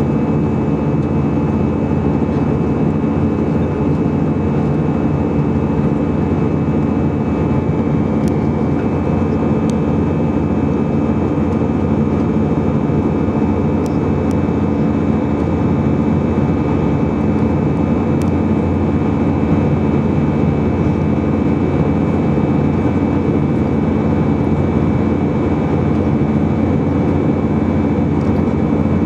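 Steady in-flight cabin drone of an Airbus A319-111, heard inside the cabin by the wing: its CFM56-5B5 turbofan engines and the rush of air past the fuselage, with a steady high whine running through it.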